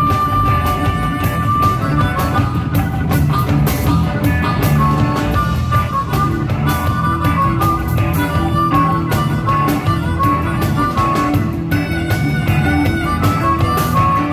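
Live blues-rock band playing an instrumental stretch: drums, bass guitar, electric guitars and keyboards, with a lead line of held high notes over the top.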